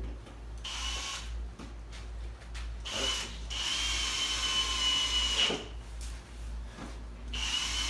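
Power drill running in separate runs with a steady whine: a short run about half a second in, a longer run of two to three seconds in the middle, and another starting near the end, with a few knocks in between.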